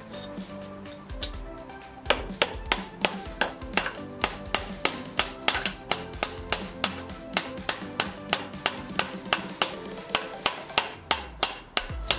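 Hammer striking a metal drift to drive out the front wheel axle, steady blows about two to three a second with a bright metallic ring, starting about two seconds in. Music plays in the background.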